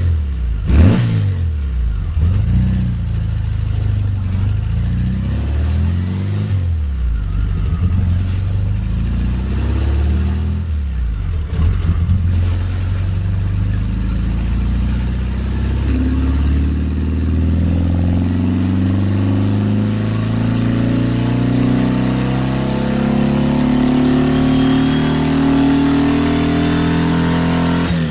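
VW Beetle's 1900 cc air-cooled flat-four engine being revved: several short blips of the throttle in the first half, then a long slow climb in revs that is held high and drops back quickly at the very end.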